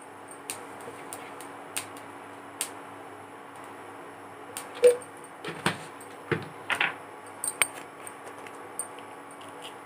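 Light clinks and knocks of kitchen containers and utensils being handled beside the pan, a dozen or so scattered through, the loudest about five seconds in with a brief ring. Under them, a steady faint hum from the induction cooktop running.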